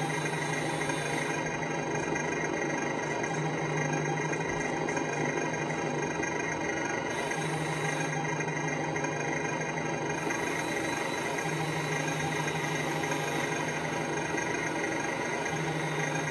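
Engine sound from the RC model armored car's electronic sound unit: a simulated engine idling steadily through a small speaker. A low hum joins it and drops out again several times.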